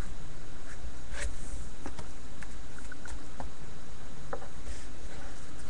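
Faint clicks and scratches of trading cards being handled, over a steady low hum.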